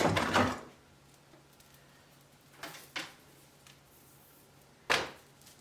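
A few short clicks and knocks of objects being handled, with one sharper knock near the end, over quiet room tone.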